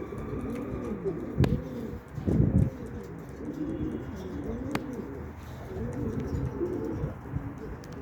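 Several domestic pigeons cooing, their low rolling coos overlapping continuously. A louder low rustle comes a little over two seconds in, and two sharp clicks are heard.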